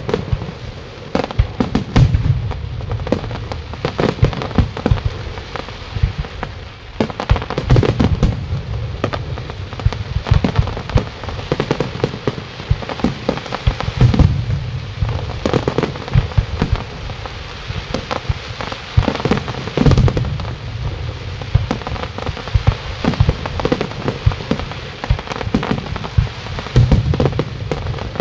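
Fireworks display: aerial shells bursting in a continuous barrage of sharp bangs, with crackling between them.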